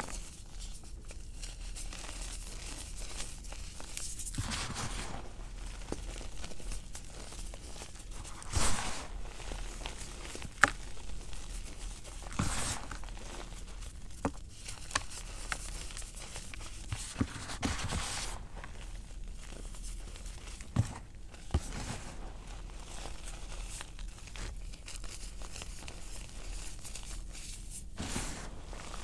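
Hands crushing and crumbling cornstarch and gym chalk balls in a bowl of powder: a steady crunchy crumbling with several sharp cracks as chunks snap, the loudest about nine and eleven seconds in.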